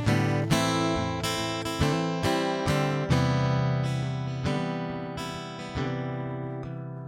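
Acoustic guitar playing the slow intro of a romantic ballad, with chords picked every second or so and left to ring and fade.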